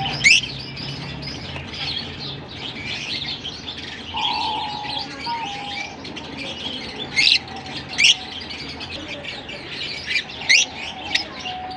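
A flock of lovebirds chattering with constant high, quick chirps, broken by about five loud, sharp, upward-sweeping shrieks: one just after the start and four in the second half.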